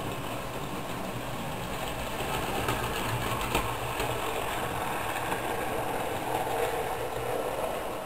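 00 gauge model train running on the layout's track: the small electric motor whirs and the wheels rattle and click over the rails, louder from about two to three seconds in as the coaches pass close.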